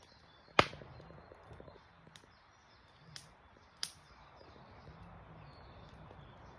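Wood campfire crackling: a few sharp pops of burning wood over a faint steady hiss, the loudest pop about half a second in.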